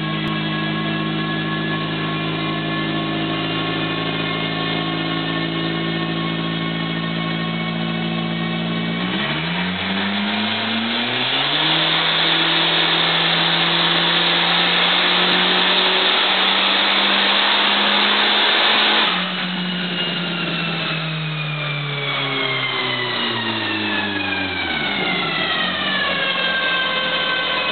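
Turbocharged Chrysler Sebring sedan making a full-throttle pull on a chassis dynamometer at 25 psi of boost. The engine runs steadily, then about nine seconds in the throttle opens and its note climbs into a loud full-power run of about eight seconds. The throttle then shuts and the engine and rollers wind down with a falling whine.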